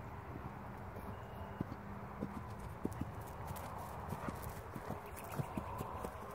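Hoofbeats of a Friesian cross horse on a grass arena, dull thuds on turf that grow louder and closer together as the horse comes up to the microphone and passes it.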